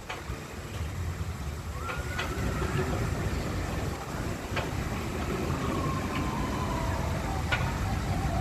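Outdoor ambience beside a steel roller coaster: a steady low rumble with a few sharp clicks scattered through it and faint thin tones in the background.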